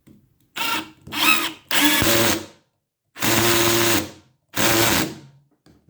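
Warrior 18V cordless drill driver run in five short bursts with a larger drill bit, the torque collar set to 7. The setting is too low for the bit, so the clutch slips and the hole does not get drilled.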